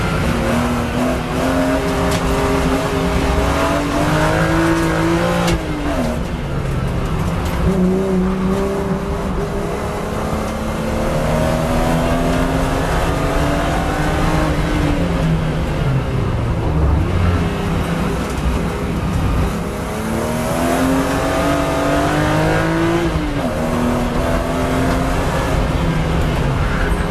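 BMW E36 M3's 3.2-litre straight-six engine heard on board at full throttle, revving up through the gears. Its pitch climbs and drops sharply at gear changes about 5 and 23 seconds in, and falls slowly in the middle as the car slows for a bend.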